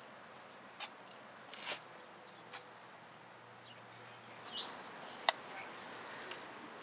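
Scattered small clicks, rubs and a brief squeak of hand work as a silicone grip is pushed onto a bike handlebar, with one sharp click about five seconds in.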